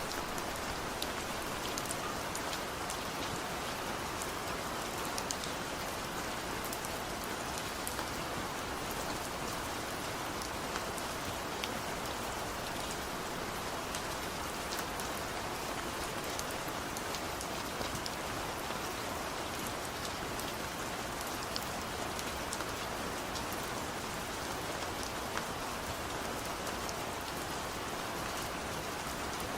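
Steady rain falling: a dense, even hiss sprinkled with scattered sharp ticks of individual drops.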